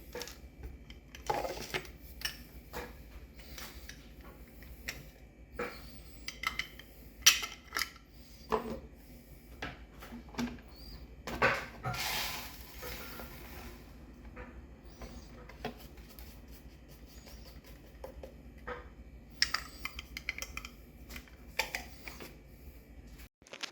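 Scattered clicks, clinks and knocks of kitchen items being handled, with a short hiss about twelve seconds in.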